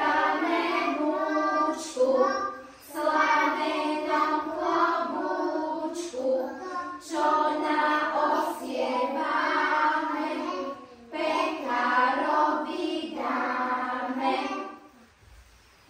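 A group of young children singing a song together in Slovak, in phrases of a few seconds with short breaths between them; the singing stops about a second before the end.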